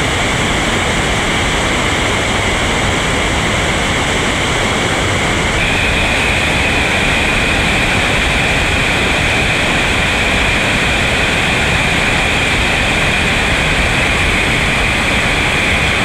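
Loud, steady rush of whitewater rapids, with a slight shift in tone about five and a half seconds in.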